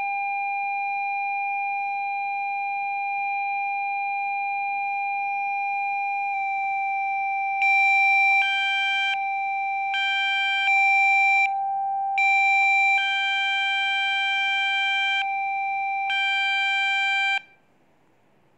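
Synthesized Rife frequency tones: a steady electronic tone with overtones, which steps slightly lower about six seconds in. From about eight seconds on, higher tones switch on and off every half second to second, until the sound cuts off suddenly about a second before the end, leaving a faint hiss.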